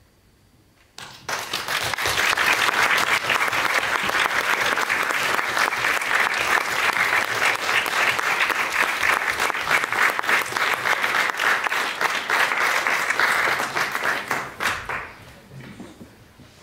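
Audience applauding, starting suddenly about a second in after a quiet moment and dying away near the end.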